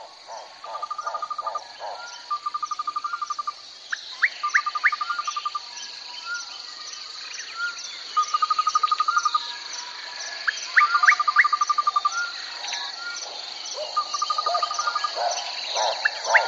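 Wild bush ambience: a steady high insect drone with evenly spaced ticks, over which come repeated trilling calls about a second long and short rising bird whistles. A run of rapid low pulsing calls starts near the end.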